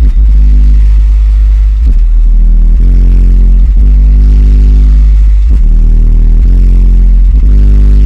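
Extremely loud bass-heavy music played through the van's door speakers and subwoofers. A deep, unbroken low bass tone sits under bass notes that change about once a second, so loud that the recording runs at its ceiling and sounds overloaded.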